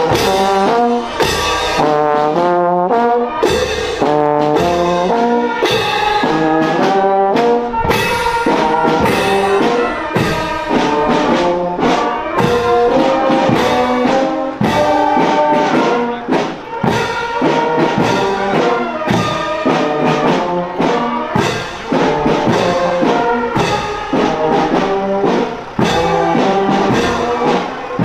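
A marching brass band playing: brass horns and tubas carry the tune over a regular bass drum beat.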